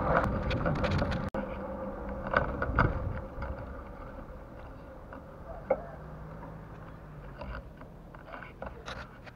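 Bicycle ride noise: wind on the microphone and rattling over the ground. After about a second it drops suddenly to a quieter rumble with a few scattered clicks and rattles.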